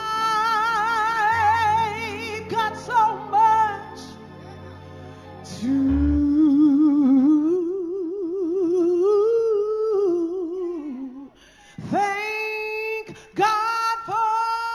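Gospel music: a woman singing a long held line with wide vibrato that rises and falls, over sustained keyboard chords and low bass notes; near the end, fresh held chords come in sharply twice.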